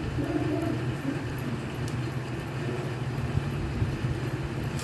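A steady low background hum or rumble.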